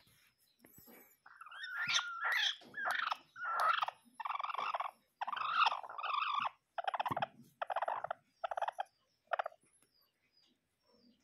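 Bantam hen giving a long series of harsh, raspy protest calls as a hand pushes under her where she sits. The calls start about a second in, grow shorter and choppier towards the end, and stop a couple of seconds before the close.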